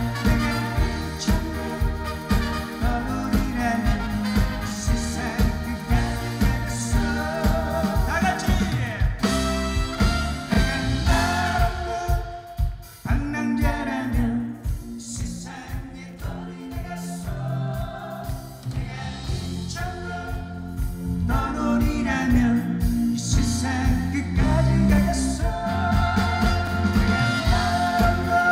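Live band music with a steady drum beat and singing, briefly thinning out about halfway through.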